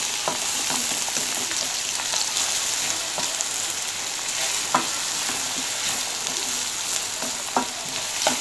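Chopped onions sizzling in oil in a kadai on medium-low heat, stirred with a wooden spatula: a steady sizzle with a few sharp knocks of the spatula against the pan, one about five seconds in and two near the end.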